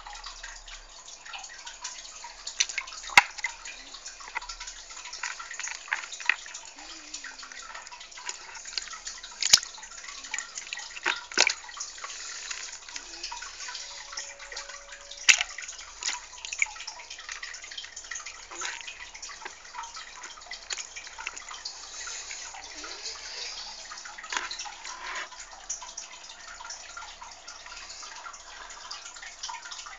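Water trickling and dripping steadily, with a few sharp clicks standing out now and then.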